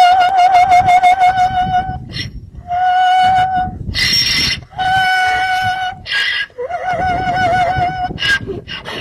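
Donkey braying in an unusually musical, drawn-out way: four long, high held notes, some with a wavering pitch, broken by short rough, noisy gasps between them.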